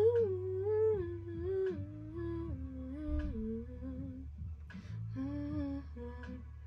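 A voice humming a wordless melody over a steady low bass backing. The melody steps downward in pitch, breaks off about four seconds in, then starts again a little higher and falls once more.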